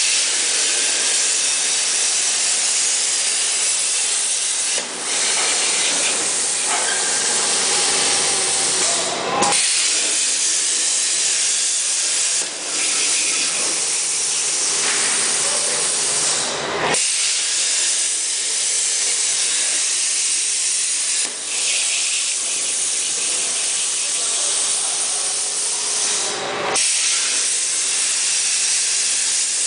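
Plasma torch cutting through an 8 mm-wall steel pipe: a loud, steady hiss, broken by a brief dip a few times.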